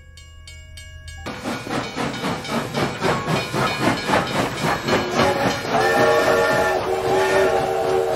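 Steam locomotive drawing in, its exhaust chuffing in quick regular beats under a steady hiss of steam and growing louder. Near the end its whistle blows twice in quick succession.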